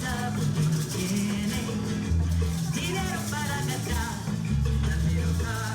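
Latin-style music: a bass line stepping between held notes under a wavering melody line.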